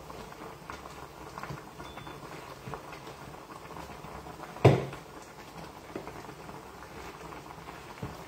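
Cooking sounds at the stove over a steaming pot: light clinks and taps of a utensil and pot lid, with one sharp knock about halfway through, the loudest sound.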